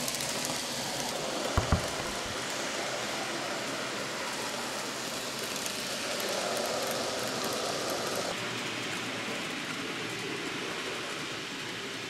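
N gauge model steam train running on the layout's track: a steady noise of wheels and motor, a little louder for a couple of seconds in the middle as the coaches pass. Two short low thumps about a second and a half in.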